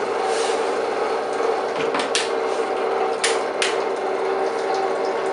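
SLMCO FBS400 reverse-osmosis desalination unit's 24-volt high-pressure pump running with a steady hum. Four sharp clicks in two pairs, about two seconds in and again about a second later, as the Pelican case's latches snap shut.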